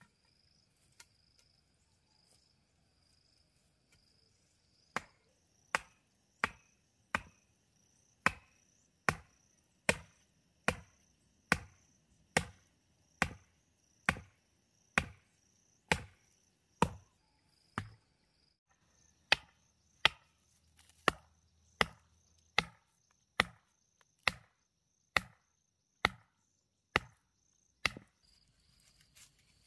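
A hand tool chopping in a steady rhythm, about one sharp blow every 0.8 seconds, starting about five seconds in, with a brief pause in the middle. Insects chirp steadily in the background throughout.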